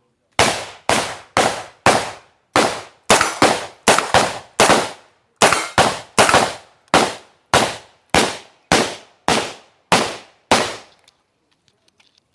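A string of about twenty semi-automatic gunshots, fired steadily at roughly two a second, each with a short echoing tail. The shots stop about a second before the end.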